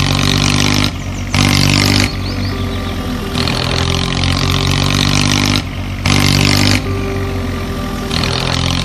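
Engine sound effect, a vehicle engine running and revving, dubbed in as short spliced pieces that jump abruptly in loudness and pitch every second or two.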